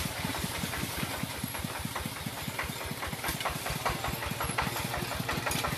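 Single-cylinder diesel engine of a Kubota two-wheel walking tractor running at a steady low speed, a regular chugging beat of about six firing strokes a second.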